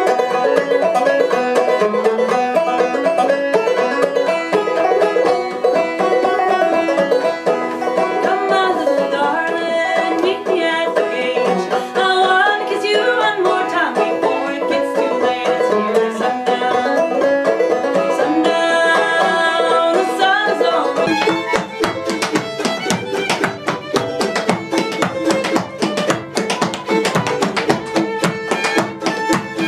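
Acoustic string band playing, with banjo picking prominent. About two-thirds of the way through the music turns sparser and more percussive, with sharp rhythmic hits.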